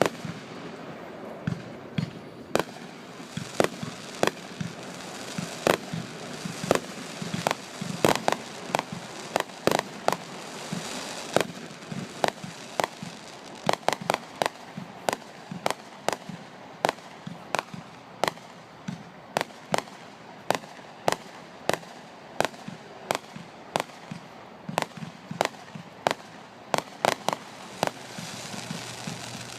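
Aerial fireworks display: dozens of sharp bangs from bursting shells at uneven spacing, often several in quick succession.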